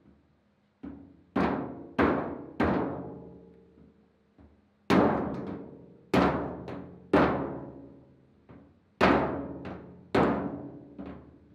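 A mallet strikes a new metal fuel tank about a dozen times, in bunches of three to five blows with pauses between. Each blow sets the hollow tank ringing like a drum, and the ring fades slowly.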